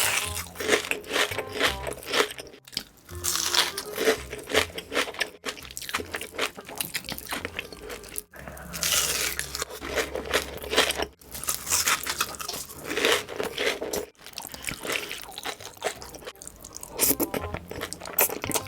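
Close-miked eating sounds of big bites of noodles: slurping, chewing and wet mouth noises, in short stretches that break off every few seconds, over faint background music.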